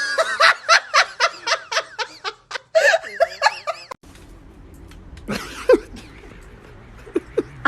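A person laughing in quick, repeated giggles for about four seconds, which stops abruptly; after that it is quieter, with only a few brief short sounds.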